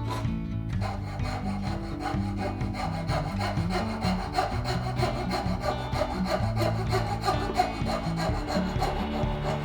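Repeated strokes of a hand tool working wood, with background music and a steady bass line playing underneath.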